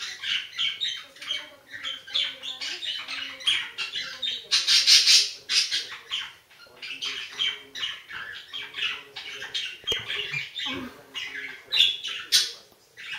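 Budgerigars chattering with quick, warbling chirps and sharper squawks, with a louder stretch about five seconds in.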